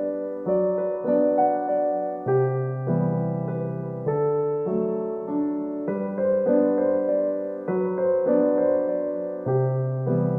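Background music: a gentle piano or electric-piano melody over sustained chords that change every couple of seconds.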